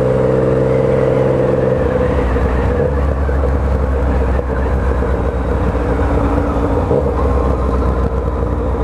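Motorcycle on the move: engine running steadily under a rush of road and wind noise. A pitched engine drone, rising slightly, fades out about two seconds in, leaving a low, steady rumble.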